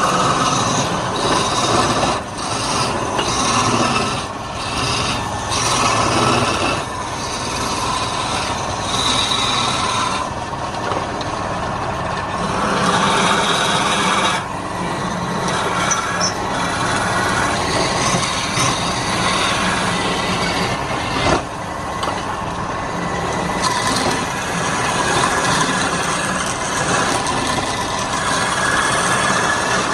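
Wood lathe spinning a workpiece while a turning tool cuts into the wood: a continuous rough scraping noise that swells and eases as the cut changes.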